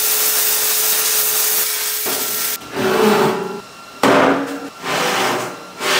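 Welding arc crackling steadily as a seam is welded on a steel smoker firebox, then cutting off abruptly about two and a half seconds in. It is followed by several short, separate sounds about a second apart.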